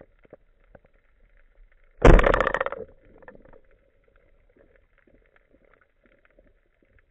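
Band-powered speargun fired underwater: one sudden loud thump about two seconds in, with a short rattling tail that fades within a second. Faint clicks are heard before and after it.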